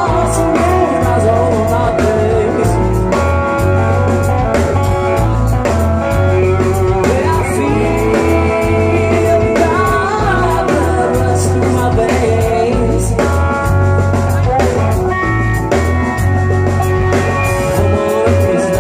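A rock band playing live: electric guitar, bass guitar, keyboard and drum kit, with a singer's voice and a steady pulsing beat.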